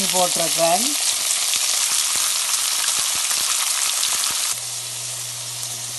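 Chopped onions and shallots sizzling in hot oil with whole spices in a pan: a steady frying hiss. About four and a half seconds in it drops suddenly in level and a low steady hum joins it.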